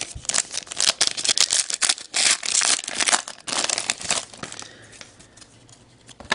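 Plastic wrapper of a trading-card pack being torn open and crinkled in the hands, a dense rapid crackling that dies down to a few faint rustles after about four seconds.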